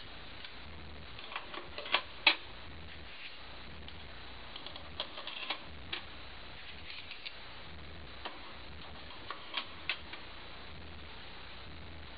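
Irregular light clicks and taps as 4x5 dry plates are set one by one into the plate track of a circa 1908 Conley Magazine box camera, the sharpest click about two seconds in.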